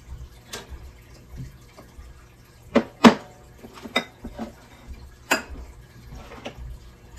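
Half a dozen sharp clicks and knocks of candles and a metal-and-glass candle lantern being handled, the loudest about three seconds in.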